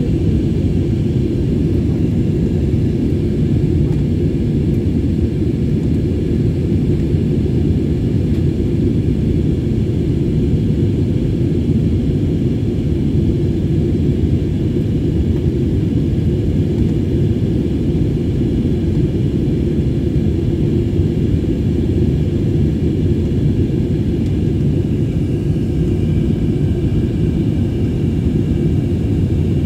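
Cabin noise of an airliner in flight, heard from a window seat: a steady low drone of engines and rushing air, with a faint high whine above it.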